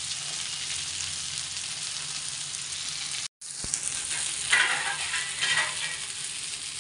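Masala-coated fish shallow-frying in a little oil in a flat iron pan, a steady sizzle. A little over halfway through there is a short stretch of louder crackling.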